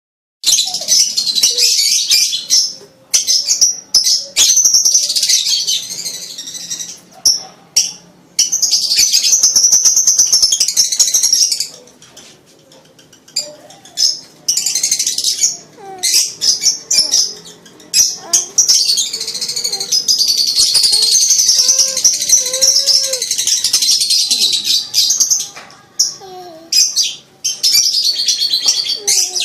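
Lovebird in breeding season chattering in rapid, high-pitched trills, in bouts of a few seconds broken by short pauses.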